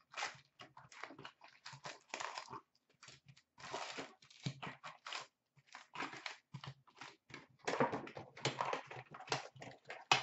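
A cardboard hobby box of hockey cards being opened and its foil-wrapped packs handled: irregular rustling, crinkling and scraping of cardboard and pack wrappers as the packs are pulled out and stacked.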